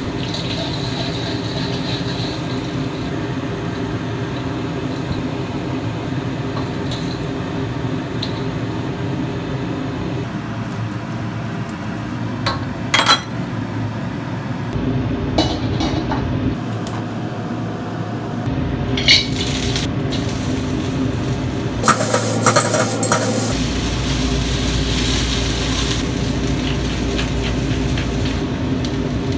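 Garlic slices frying in hot oil in a wok under a steady hum, with a few sharp metallic clinks of a skimmer and utensils against the wok and bowl.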